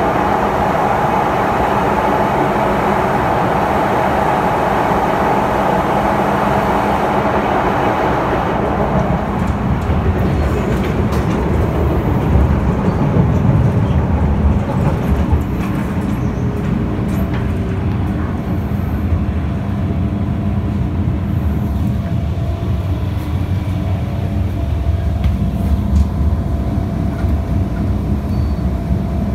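MTR Disneyland Resort Line M-Train running between stations, heard from inside the carriage: a steady rumble of wheels on track. A steady whine over the first several seconds stops about a third of the way through, after which the low rumble is stronger.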